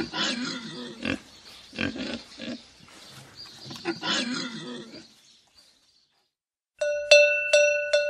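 Pigs grunting in a run of short, rough sounds for about five seconds. After a brief gap, a quick series of bright musical notes on one pitch starts near the end, about three a second.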